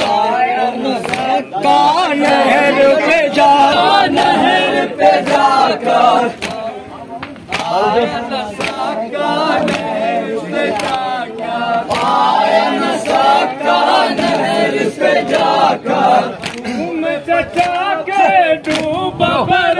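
A group of men chanting a Muharram mourning lament (nauha) together, with sharp hand slaps of chest-beating (matam) sounding through the chant.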